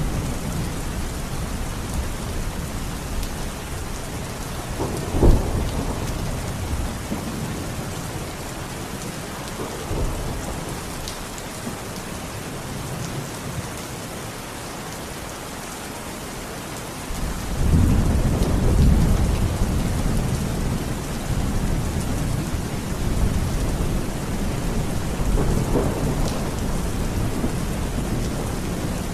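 Steady rain with thunder: a short sharp thunderclap about five seconds in, then a deep rolling rumble that builds suddenly past the halfway point and dies away slowly, the loudest part.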